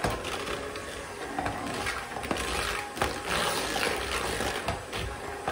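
Electric hand mixer running steadily, its beaters churning butter, shortening, eggs and sugar into cookie dough in a plastic bowl.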